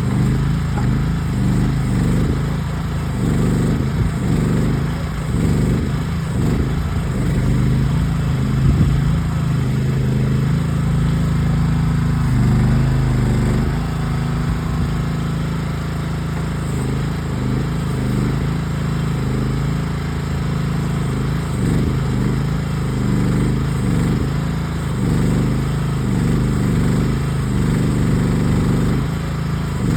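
Small gasoline engine of a Groundhog ZH12G mini excavator running steadily while it digs, its note wavering as the hydraulics take load.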